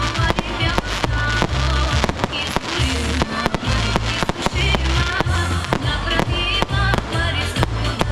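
Fireworks display: rapid, irregular bangs and cracks of bursting shells, several a second, over loud music with a heavy bass line and a melody.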